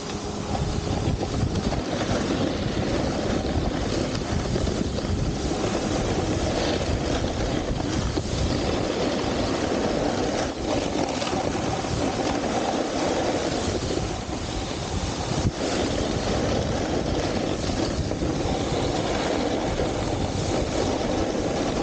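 Steady rushing noise of a snowboard riding down icy, hard-packed snow, with wind buffeting the microphone. One sharp knock comes about two-thirds of the way through.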